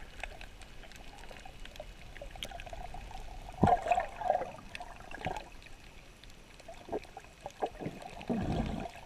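Water sloshing and gurgling around an underwater camera, with irregular bubbly surges; the biggest, deepest surge comes near the end.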